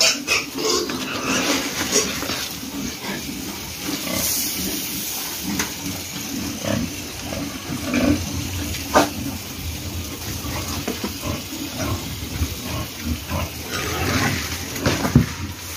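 A group of young fattener pigs eating feed off a wet concrete pen floor: wet chomping and slurping with grunts.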